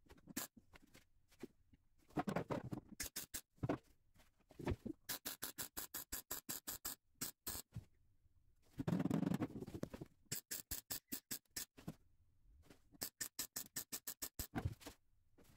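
Runs of rapid, sharp clicks, several a second, from hand work on the car's metal bodywork, broken by two short, louder rasping bursts about two and nine seconds in.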